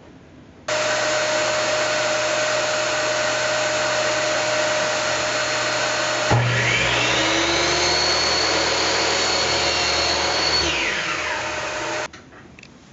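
A steady, loud machine noise starts abruptly about a second in. About halfway through, a miter saw's motor spins up with a rising whine, runs at a high steady pitch for about four seconds, then winds down with a falling whine. The steady noise cuts off shortly after.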